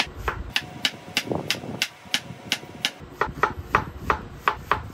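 Chef's knife dicing an onion on a wooden cutting board: a steady run of sharp knocks, about three to four a second, with a brief pause near the middle.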